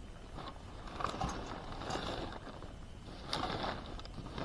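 Soft rustling with a few light clicks while spice powder is added to a plastic plate of gram flour, in two short spells about a second in and again past three seconds.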